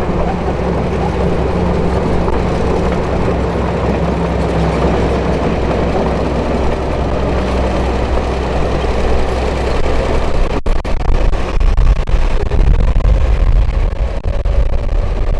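Diesel engine of heavy earthmoving machinery running steadily under work. After a brief break about ten and a half seconds in, the low rumble turns rougher and a little louder.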